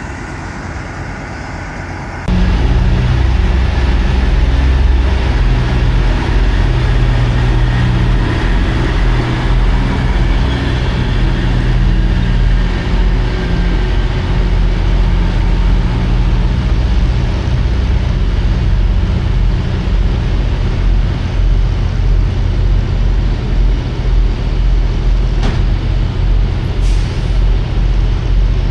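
Semi truck's diesel engine running steadily, heard from the truck, suddenly much louder about two seconds in. A short hiss near the end.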